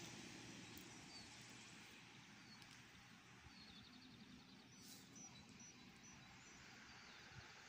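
Quiet outdoor ambience: a faint steady hiss with small birds chirping now and then, high and thin, including a short twittering run about halfway through.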